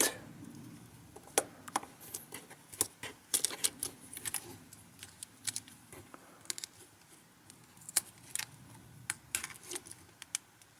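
Irregular light clicks and taps of a smartphone's motherboard and small internal parts being handled and pressed into the phone's plastic frame.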